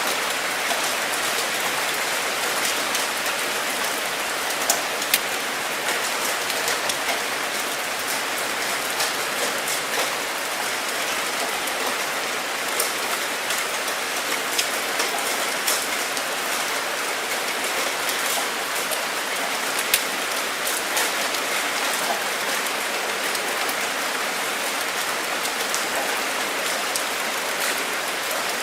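Steady rain falling on a surface, an even hiss dotted with the sharp ticks of individual drops.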